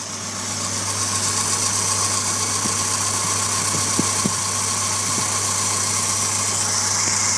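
Kia Sportage 2.0 SOHC engine running with its belt-driven York 210 air compressor, a steady hum under a strong hiss that builds over the first two seconds and then holds, with a few light clicks about four seconds in.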